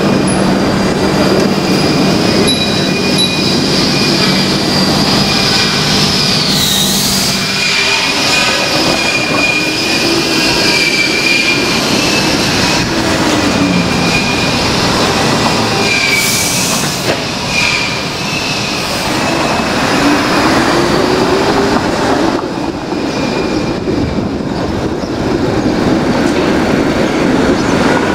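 Toronto streetcar running along the street, heard from on board: a steady rumble of wheels on rail, with high squealing tones from the wheels coming and going and a low motor hum in the first few seconds.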